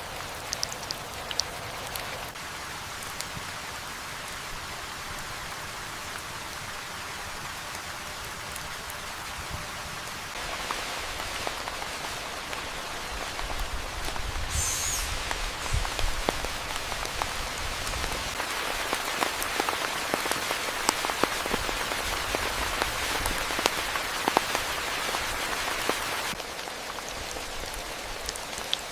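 Rain falling steadily, with sharp drip impacts scattered through it. It grows heavier about a third of the way in and eases suddenly near the end.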